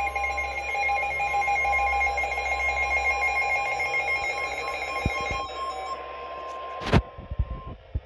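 Several weather alert radios sounding their emergency alert tones at once, a few steady shrill tones layered over each other, most cutting off about five and a half seconds in and the last one about two seconds later. A sharp click comes near seven seconds.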